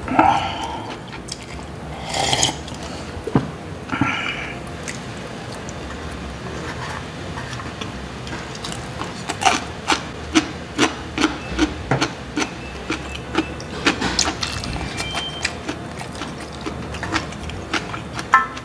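Eating sounds: slurps of doenjang soup from a thermos food jar near the start, then wooden chopsticks scraping and clicking against a stainless steel tray, about two clicks a second, as rice is scooped up and chewed.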